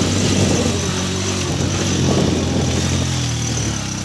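Small motorcycle taxi (boda boda) engine running under way, a steady low engine note that shifts slightly in pitch partway through, over a constant rushing noise.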